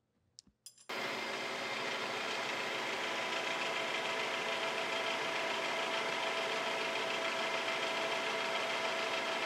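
Milling machine spindle running as a twist drill bores a hole into the capstan base, cutting into a threaded-in steel plug. The steady machine noise starts abruptly about a second in and holds evenly throughout.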